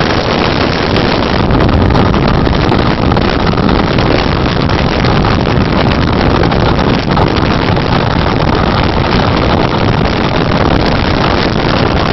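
Loud, steady rush of wind on the microphone held out of a moving train's window, over the train's running noise at speed.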